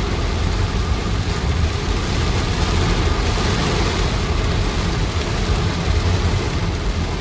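Motorcycle engine running while riding, a steady loud low rumble. It cuts off suddenly near the end.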